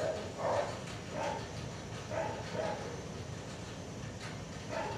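A sleeping dog letting out about five short, soft, muffled woofs at irregular intervals: barking in his dream.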